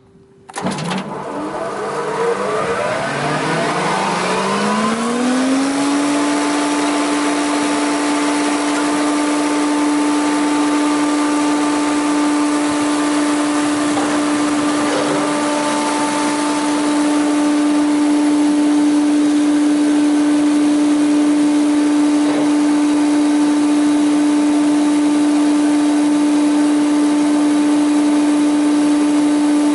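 Jaroma DSMC 60 thickness planer starting up and running empty: its cutterhead motor runs up with a rising whine over about five seconds, then runs at steady speed with a strong, even hum, a little louder after about eighteen seconds.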